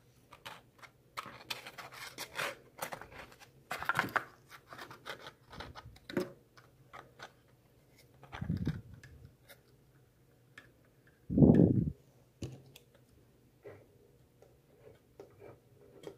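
Cardboard being handled and fitted by hand: a run of scratches, scrapes and small clicks, then two dull thuds in the second half, the second the loudest.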